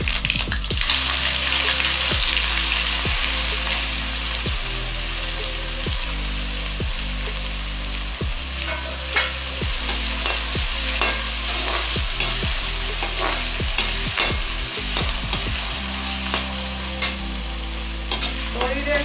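Chopped onions sizzling in hot oil in a metal kadai, the oil already tempered with crackled mustard seeds; the sizzle swells as the onions go in about a second in. From about halfway on, a perforated metal spatula clicks and scrapes against the pan as the onions are stirred.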